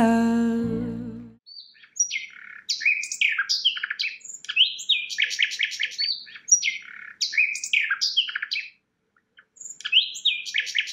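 A songbird singing: fast runs of high chirps and down-slurred whistles, breaking off for about a second near the end and then starting again. In the first second a held music note dies away.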